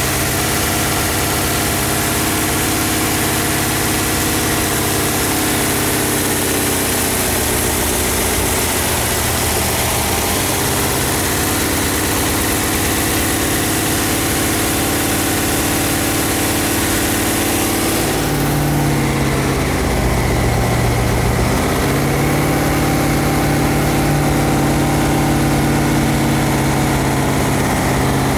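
A jet boat's Chevy 458 V8 running at low rpm, its engine speed stepping up and back down a few times.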